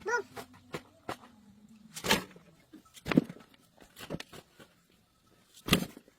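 A series of sharp knocks or strikes, about seven at irregular intervals of roughly half a second to a second and a half, over a faint low hum during the first two seconds.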